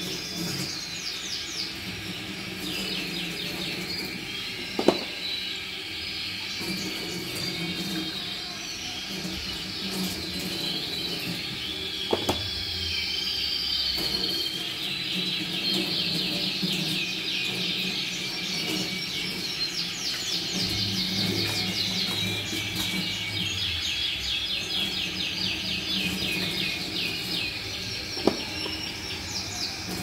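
A roomful of Yorkshire canaries singing, with fast trills and chirps overlapping, over a tap running into a steel sink. Three sharp plastic clacks stand out, about five seconds in, near the middle, and near the end, as drinkers knock together.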